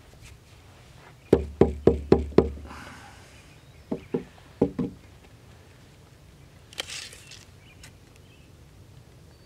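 Mallet striking a wood-handled chisel held against a timber beam to cut in a layout mark: a quick run of five knocks, then three more a moment later. A short scrape follows near the end.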